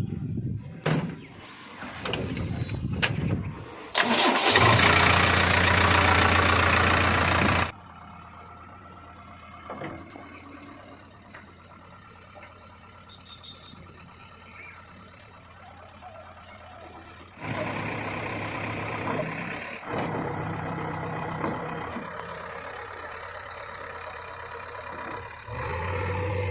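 Diesel engines of a backhoe loader and farm tractors running, in short segments that change abruptly from loud to quieter and back. A few sharp knocks come in the first seconds.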